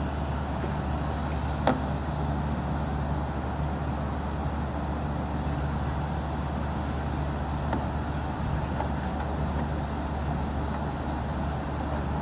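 A steady low mechanical hum with two constant low pitches, and one sharp click about two seconds in.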